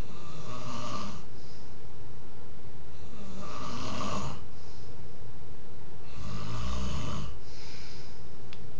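A man snoring in his sleep: three loud snores about three seconds apart, each lasting about a second, the third one the deepest.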